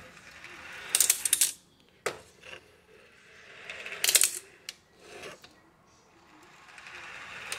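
Steel balls rolling along metal channels of cold motor oil as the rack is tilted, then clacking against each other and the channel ends. The loudest bursts of clacks come about a second in and about four seconds in, with smaller clicks between, and a rolling sound building again near the end.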